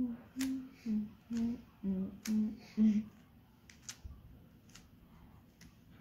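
A person humming a short tune of about seven brief notes over the first three seconds. Sharp clicks of a Rubik's cube's layers being turned are scattered through.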